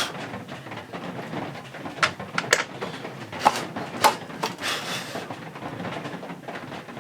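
Workshop handling sounds: a few sharp clicks and knocks, with a short scrape near the middle, as the plywood is measured and marked.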